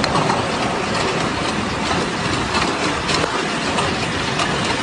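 Hail pelting down: a loud, dense clatter of many hailstones striking the ground.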